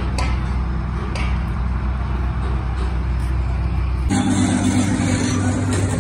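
An engine or motor running steadily with a low hum, with a few knocks in the first second or so. About four seconds in, the sound changes abruptly to a different, higher steady hum with more hiss.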